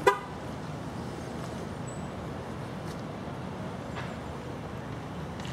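Steady outdoor background noise, with one brief, loud pitched call at the very start.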